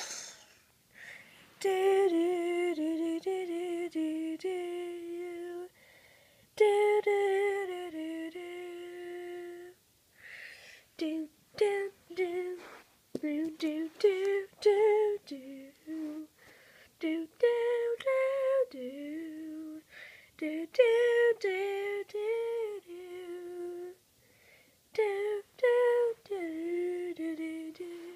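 A child humming a wordless tune, held notes in short phrases with brief pauses between them.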